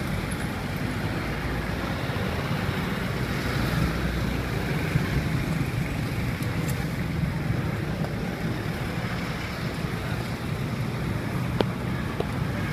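Steady outdoor street background noise: a low rumble with a hiss over it, and a couple of sharp clicks near the end.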